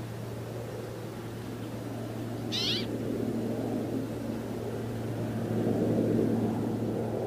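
A brambling gives one short call about two and a half seconds in, over a steady low hum and rumble.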